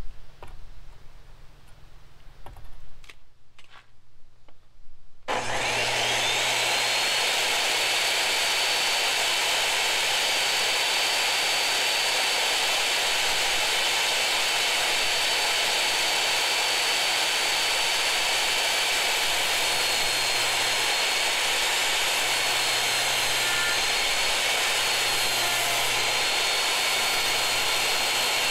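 A few light clicks, then a compact jobsite table saw switches on about five seconds in, its motor spinning up to a steady high whine and running on, with slight dips in pitch near the end as a glued-up pine panel is fed across the blade.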